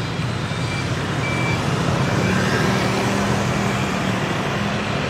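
Steady city street traffic: motor vehicles running and passing, with a low engine hum that swells slightly in the middle. Two faint short high beeps sound about a second in.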